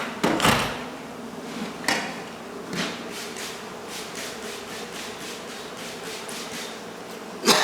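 Knocks on a wall being opened up, the first and last the loudest, with a run of quick light taps in between. Under them runs a steady low hum that fits honey bees buzzing.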